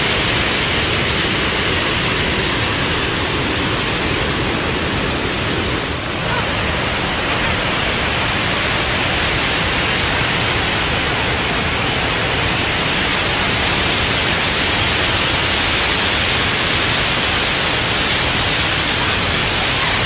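Loud, steady rush of a waterfall and rocky creek rapids, with a brief dip about six seconds in.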